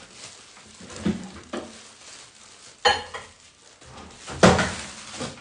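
Dishes and utensils being handled at a kitchen counter while puppy food is prepared: a few separate knocks and clinks, the loudest near the end.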